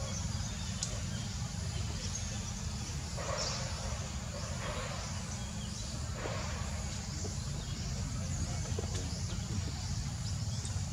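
Leaves and thin branches rustling a few times, near the middle, as a small monkey climbs a sapling, over a steady low rumble and faint high chirping.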